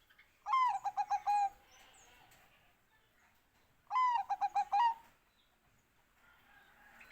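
Bangkok-strain zebra dove (perkutut) singing: two song phrases a few seconds apart, each an opening note that swoops up and down followed by a quick string of about half a dozen short staccato coos.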